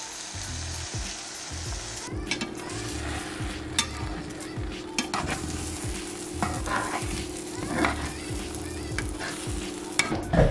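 Beaten eggs sizzling in a hot nonstick frying pan with browned zucchini cubes. From about two seconds in, a metal slotted spatula scrapes and taps against the pan as the eggs are stirred and scrambled.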